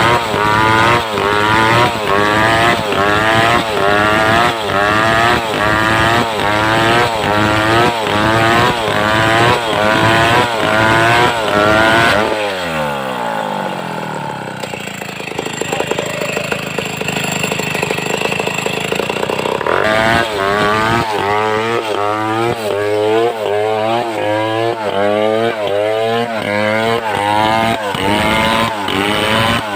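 Homemade two-stroke chainsaw cutting wood at full throttle, its engine pitch dipping and recovering about once a second under load. About twelve seconds in the throttle is let off and the engine falls to a lower idle, then it revs back up near twenty seconds and cuts again.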